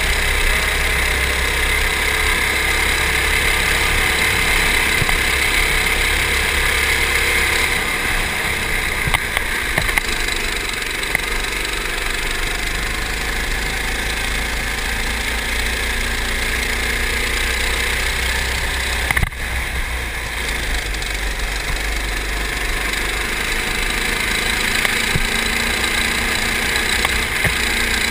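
Go-kart engine running as the kart laps the track, heard from on board the kart. Its pitch rises and falls with the revs through the corners and straights.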